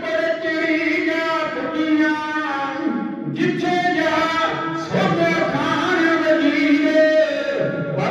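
Punjabi kavishari: a group of men singing into microphones in long held phrases, with a short break for breath about three seconds in.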